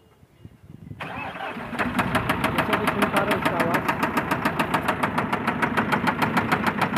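Eicher 2059 BS6 truck diesel engine starting about a second in, then idling with a loud, very regular metallic knock, about six a second. It is the knock of a worn-out connecting rod bearing, with metal found on the oil drain plug.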